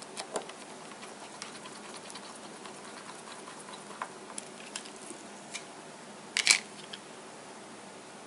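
Precision screwdriver turning the small screws in a Nexus 5's plastic midframe: scattered light clicks and ticks of metal tip on screw and plastic, with a louder clatter about six seconds in.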